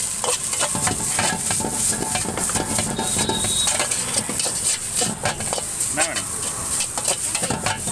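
Egg noodles stir-frying in a large steel wok: a metal slotted spoon and tongs scrape and clank against the pan over a steady sizzle.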